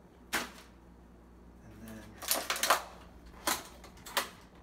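Thin plastic clamshell container of broccoli sprouts being handled and pried open: a sharp click, a burst of crackling clicks about two seconds in, and two more single clicks near the end.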